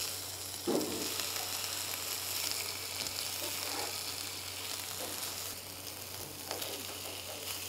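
Lean beef steak frying with onion and garlic slices in a nonstick frying pan over medium-low heat, a steady, low sizzle.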